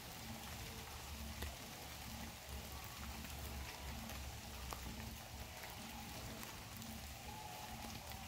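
Outdoor ambience: a steady faint hiss with a low rumble that comes and goes and a few faint scattered ticks.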